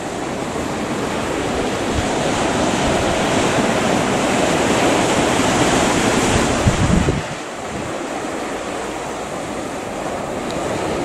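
Sea surf washing onto a pebble shore, mixed with wind buffeting the microphone. The rush swells over a few seconds and drops off sharply about seven seconds in.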